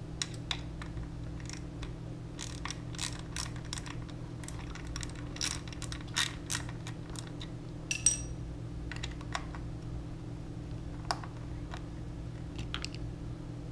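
Irregular light metallic clicks and taps of a hand driver with a T25 Torx bit, turning out a bolt from a motorcycle fairing. Some clicks come in quick clusters, over a steady low hum.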